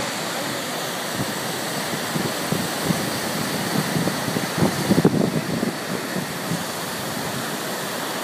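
Turbulent water churning and rushing out of a hydroelectric power station's outlet into the tailrace, a steady rushing noise. Gusts of wind buffet the microphone, strongest about five seconds in.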